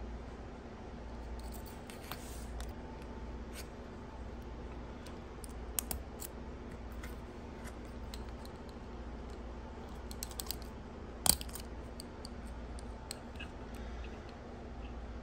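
Light clicks and handling noises of earrings with metal hooks being fitted onto a plastic display card, with one sharp, louder click about two-thirds of the way through, over a steady low hum.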